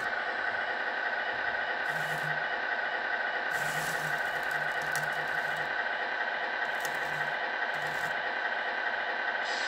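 Model concrete mixer truck's electric drum drive running steadily with a gear whine as it discharges wet concrete down the chute. A second small motor hums in short bursts several times.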